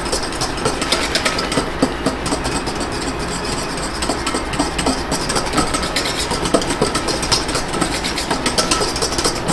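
Wire whisk beating an egg-and-cream custard base in a stainless steel bowl over a hot water bath: a fast, steady clatter and scrape of the wires against the metal bowl. The base is whisked constantly so the eggs cook evenly without scrambling.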